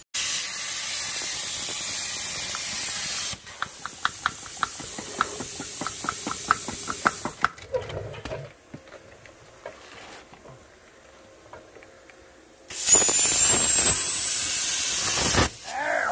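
Plasma cutter cutting out steel brackets: a loud, steady hiss of air with a thin high whine, lasting about three seconds. A softer crackling stretch of rapid clicks follows, then a second burst of hissing with a slightly rising whine near the end.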